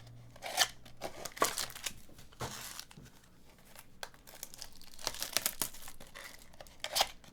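Crinkling and rustling of plastic as trading cards and their packaging are handled, in irregular bursts with a few louder crackles.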